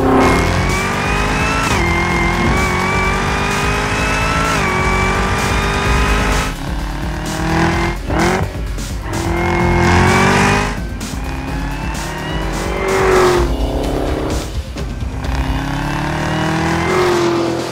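Supercharged 6.2-litre LT4 V8 of a Camaro ZL1 accelerating hard, its pitch climbing and then dropping back at each upshift, again and again. Music plays underneath.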